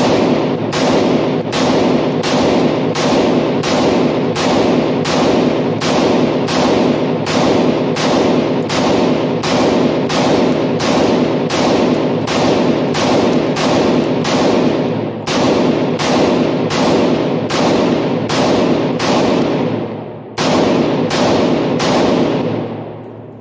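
Semi-automatic rifle fired in a steady string of shots, about two a second, each shot echoing in an indoor range. The firing breaks off briefly twice near the end and then stops abruptly.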